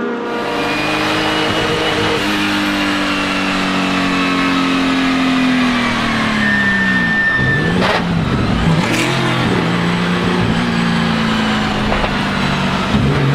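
Porsche 935 K3's turbocharged flat-six race engine, its pitch sinking slowly for several seconds as revs fall, then dipping and climbing again about halfway through before running steadier at lower revs. A brief high whistle sounds just before the dip.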